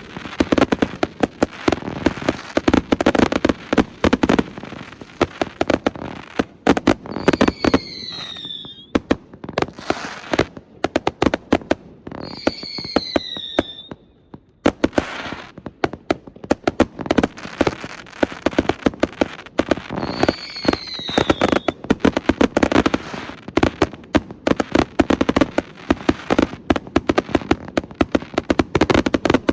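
Astroboy consumer fireworks going off in a rapid, continuous barrage of bangs and crackles. Three short falling whistles cut through it about a third of the way in, near the middle and about two-thirds through, and there is a brief lull just before halfway.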